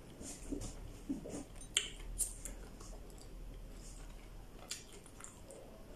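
Someone eating raw okra pods: a scattering of short, sharp crunches and clicks from biting and chewing, with pods handled on a plate.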